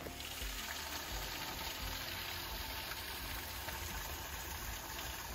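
Small woodland creek trickling over rocks, a steady even rushing hiss.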